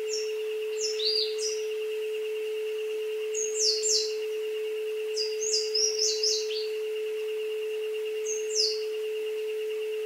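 A steady pure tone near 432 Hz and a fainter higher tone with a fast wobble, the synthetic tones of an isochronic entrainment track. Over them, birds from a jungle recording chirp in short falling notes, in quick clusters about a second in, around three and a half seconds, through the middle, and once more near the end.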